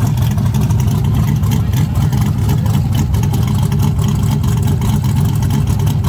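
Fox-body Ford Mustang drag car's engine idling loudly with a fast, choppy, steady beat as the car creeps toward the starting line.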